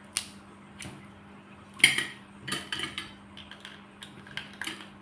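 Metal utensils clicking and scraping against a plate and crab shell as crab is picked apart: a scatter of short clinks, the loudest a little under two seconds in.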